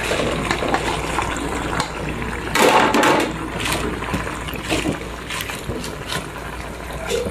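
Coconut-milk broth simmering in a pan while pechay leaves are slid in from a plate and pressed down by hand. There is a louder rustling rush about two and a half seconds in, then a few light clicks.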